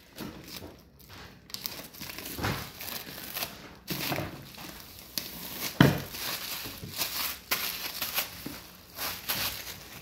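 Clear plastic shrink wrap being peeled and crumpled off a cardboard collector box, crinkling and rustling irregularly. A sharper knock stands out about six seconds in.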